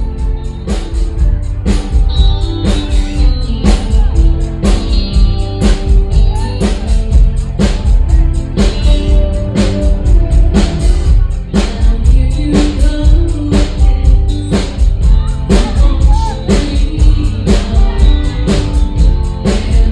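A band playing a song, with a drum kit keeping a steady beat of about two hits a second over bass and guitar.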